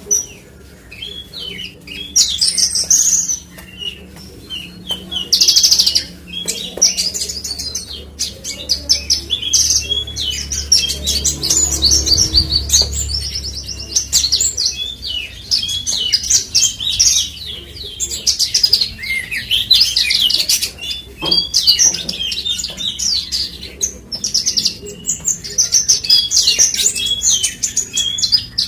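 Horsfield's bush lark (branjangan, Mirafra javanica parva) singing: long runs of rapid, varied high chirps and trills with short breaks, over a faint low hum.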